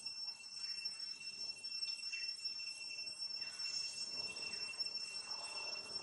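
Insects shrilling steadily on a high, even pitch over faint outdoor background noise.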